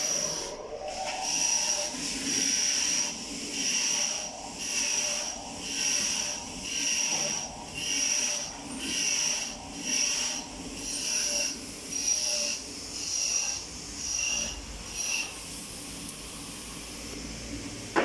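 Rhythmic back-and-forth rubbing strokes, about one and a half a second, each with a high scraping tone, like hand sanding or scrubbing; they stop about fifteen seconds in.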